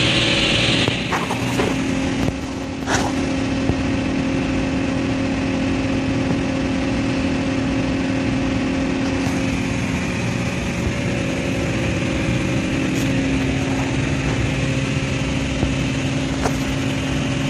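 Steady drone of running industrial machinery with a constant low hum, broken by a few short clicks.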